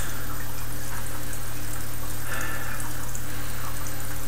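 Steady low electrical hum with an even hiss, with a faint short sniff a little over two seconds in as a beer is smelled from the glass.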